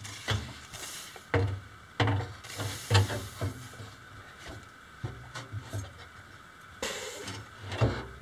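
An electric motor being handled into a steel machine cabinet: several separate clunks and short scrapes of metal on metal as it is pushed and turned into position.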